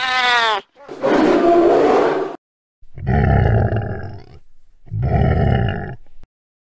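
Animal sound effects: a brief cry with a sliding pitch, then three rough roars, the last two shorter and a little under two seconds apart.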